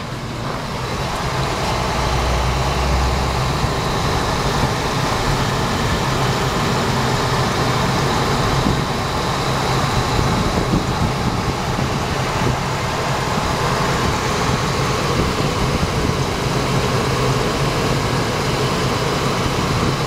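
Ford 5.4 L Triton gasoline V8 idling steadily and running quietly, heard from beneath the truck.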